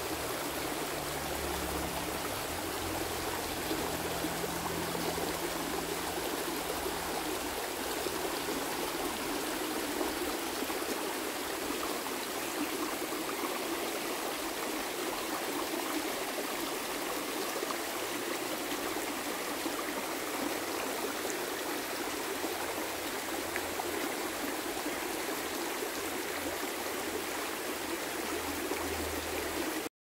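Waterfall: a steady, dense rush of falling water, with a low rumble that comes and goes in the first few seconds and again near the end.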